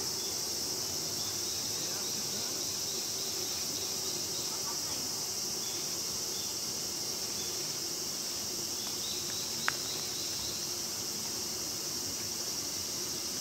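Insects shrilling in a steady, high-pitched summer chorus, with a single sharp click near the end.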